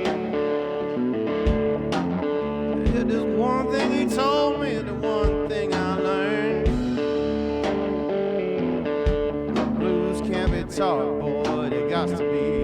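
Background music: a guitar-led song with a steady drum beat.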